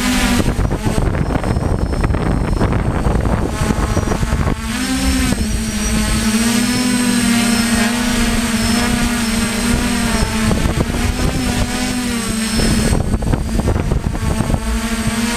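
DJI F550 hexacopter's six electric motors and propellers buzzing steadily, the pitch wavering up and down as the motors adjust speed. Rushing air noise on the onboard microphone for the first few seconds and again near the end.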